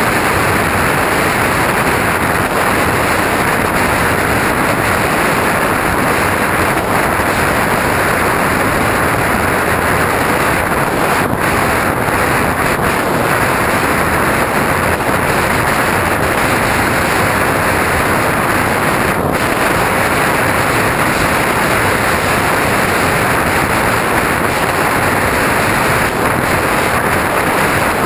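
Steady, loud rush of wind over the onboard camera of a low-flying radio-controlled airplane, mixed with the plane's motor and propeller running.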